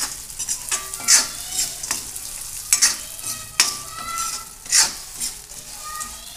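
Edible gum (gond) frying and sizzling in ghee in a kadhai while a steel spoon stirs it, scraping across the pan about once a second over a steady high sizzle.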